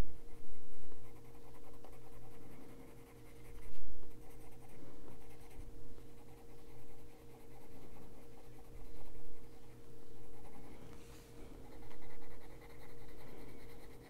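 Derwent Drawing Pencil, a wax-based coloured pencil, shading on the paper of a colouring book: uneven spells of scratchy rubbing strokes with short pauses between them.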